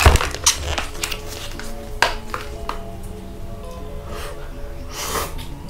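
A cup of instant noodles being handled and eaten from with a fork: a few sharp clicks and scrapes against the cup, over soft background music with steady held notes.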